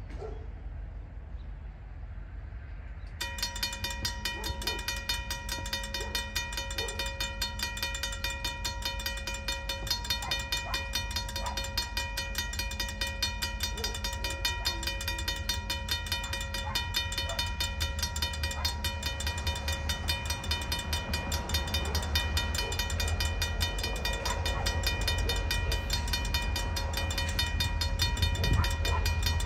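Railroad crossing warning bell starts ringing about three seconds in, a rapid, even ringing that keeps on. Under it the low rumble of the approaching Union Pacific train builds and grows louder toward the end.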